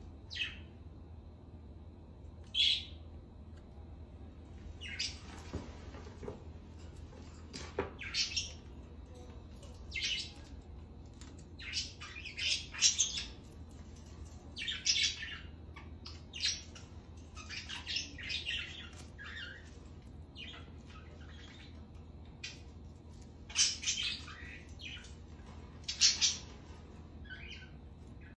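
Indian ringneck parakeet giving short, high-pitched squawks and chirps, singly and in quick clusters.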